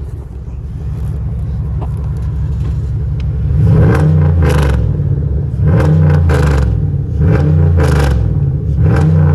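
2006 Chevrolet Impala SS's LS4 V8 idling, then revved four times in quick succession starting about four seconds in, each rev a loud, short rise and fall in engine pitch.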